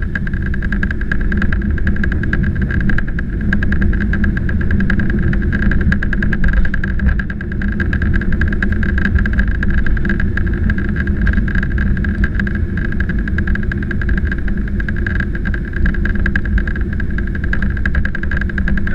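Boeing 767-300ER jet engines at low thrust while the airliner taxis after landing, heard from inside the cabin: a steady whine over a dense low rumble.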